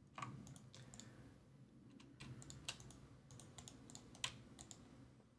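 Faint, irregular clicking of computer keyboard keys, the loudest click about four seconds in.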